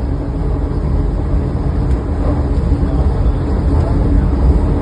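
Vande Bharat Express electric trainset running on the line: a steady, heavy low rumble with a constant hum, growing slowly louder as the train gathers speed after leaving the station.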